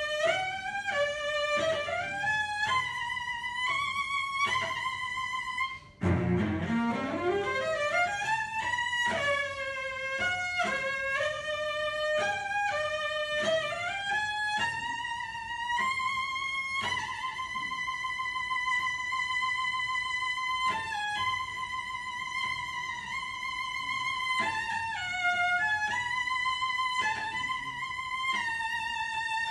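Unaccompanied solo cello playing: a run sweeping up from the low register, a brief break about six seconds in, another rising run, then long high notes held with vibrato.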